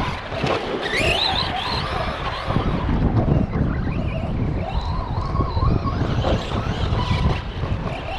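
Arrma Big Rock RC monster truck's electric motor whining, its pitch rising and falling again and again with the throttle, over a steady rumble of running gear.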